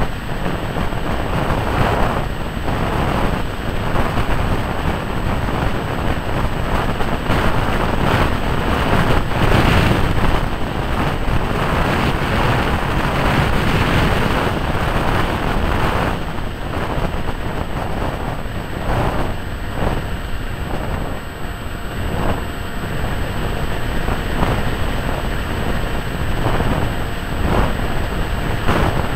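Wind rushing over the microphone of a camera riding on a HawkSky electric RC plane in flight, together with the plane's motor and propeller. The noise swells and eases as the plane banks and turns.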